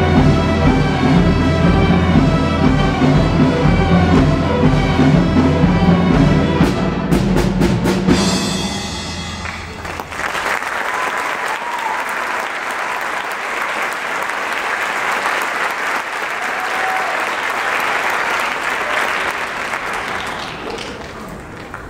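School string orchestra (violins, cellos and double basses) playing the final bars of a piece, which ends about eight seconds in. The audience then applauds for roughly ten seconds, the applause fading near the end.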